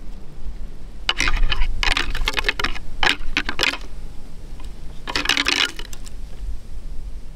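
A pair of deer antlers clashed and ground together in four short bouts of rapid clicking and clattering: rattling, which imitates two bucks sparring to draw a buck in.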